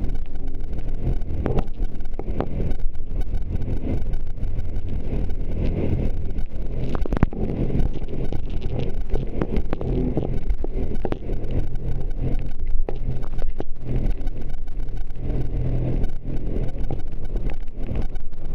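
Jet ski engine running at full throttle, a steady loud drone with rough knocks and noise over it.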